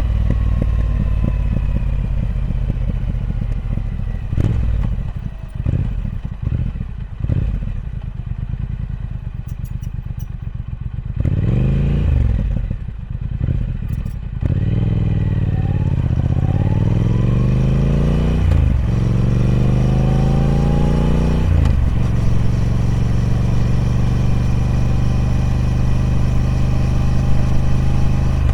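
Triumph Speed Twin 1200's parallel-twin engine on its stock exhaust while riding. The engine note falls and goes uneven with the throttle on and off. It then rises twice, broken by two quick upshifts, and settles into a steady cruise.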